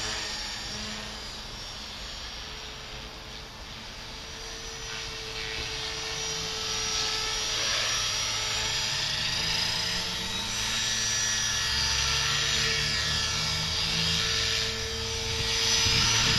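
Align T-Rex 450 Pro electric RC helicopter flying: a steady whine from its electric motor and spinning rotors, the pitch sliding up and down as it manoeuvres. It grows louder as it comes down from height to hover just above the grass.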